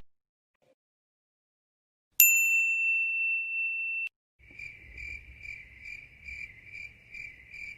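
A single clear ding about two seconds in, ringing and slowly fading for about two seconds before it cuts off. Then a cricket chirping, about two chirps a second, over a faint low rumble.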